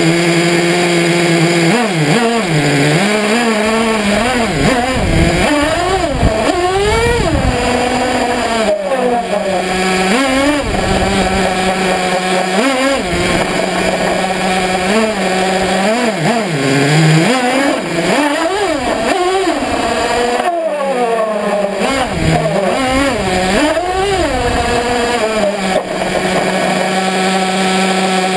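Radio-controlled car's motor running close to the microphone, its pitch sweeping up and falling back many times as the throttle is worked, and settling to a steady tone between bursts.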